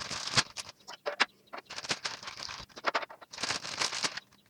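Crinkling plastic packaging and light clicks of small plastic toy furniture pieces being handled and unpacked, in short irregular bursts.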